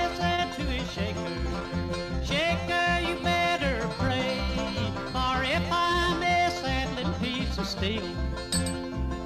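Bluegrass-style instrumental music with plucked strings and sliding notes over a steady bass beat.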